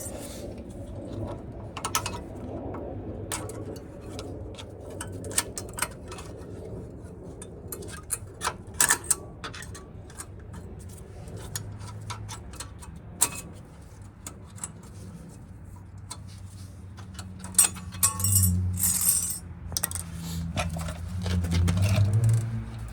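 Sharp metallic clicks and clinks as the thin steel hardware clips are pried off a brake caliper bracket. A low hum comes in near the end.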